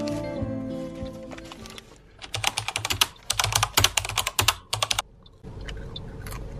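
Crumpled brown paper bag being crinkled and torn by hand: a dense run of sharp crackles for about three seconds, starting a couple of seconds in. Soft background music fades out before it.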